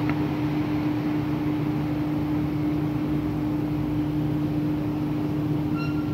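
Steady mechanical hum with a constant low tone under an even hiss, unchanging throughout.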